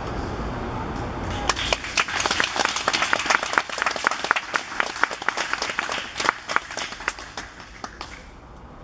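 A small group applauding, many hands clapping irregularly from about a second and a half in, thinning out and dying away near the end. A steady low rumble lies underneath before the clapping starts.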